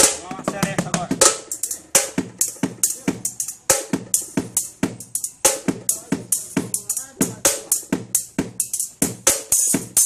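Homemade bucket drum kit of plastic buckets and metal paint cans, with a circular saw blade as cymbal, played with drumsticks in a quick, steady beat of dense strikes.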